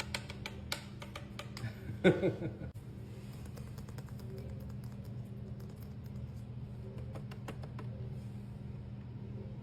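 Steady low hum of a running vacuum cleaner's motor. Quick light clicks come over it in the first few seconds, with one short vocal sound about two seconds in.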